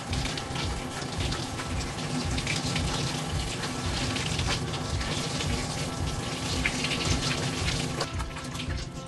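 Handheld shower sprayer spraying water onto a wet cat's coat in a stainless steel bathing tub: a steady rushing hiss that stops about eight seconds in.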